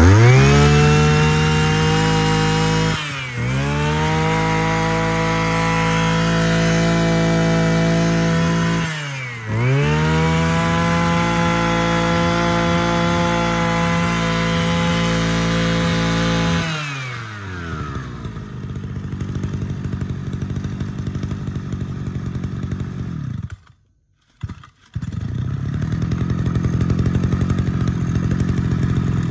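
Mitsubishi TL33 33cc two-stroke brush cutter engine revved to full throttle three times, each held for several seconds with a brief dip between. It then drops back to idle about 17 seconds in, with a short break in the sound near 24 seconds before idling again.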